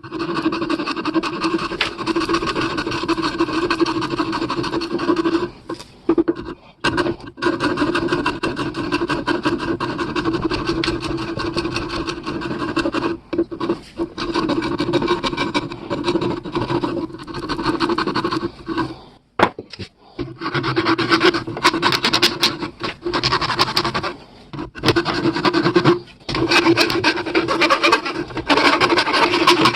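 An abrasive tool working a surface during restoration: a steady rasping with a constant hum under it, stopping abruptly for short moments several times.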